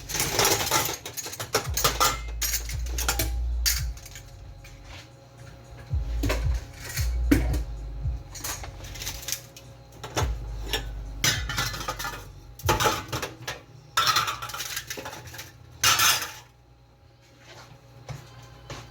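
Pots, pans and metal kitchenware being picked up, moved and set down, with irregular clanks and clinks of metal knocking on metal.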